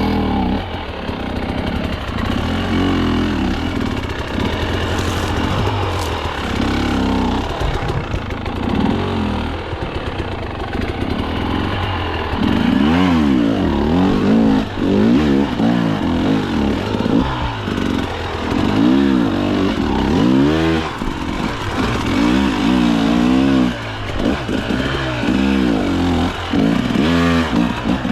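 KTM two-stroke dirt bike engine revving up and down in repeated surges under load, pitch rising and falling again and again.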